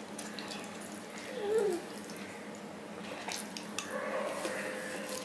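Soft wet sounds of eating by hand: fingers working rice and curry on a steel plate, and chewing, with a few small clicks. One short voice-like sound about a second and a half in.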